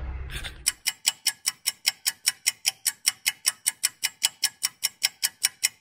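Even, clock-like ticking sound effect, about five sharp ticks a second, starting just under a second in after a brief low hum fades out.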